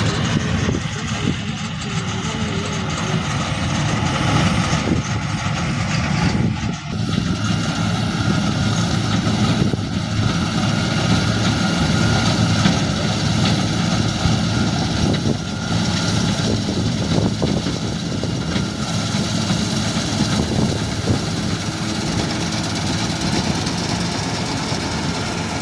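John Deere tractor with a tractor-mounted combine harvester, its engine running steadily, with a continuous mechanical noise.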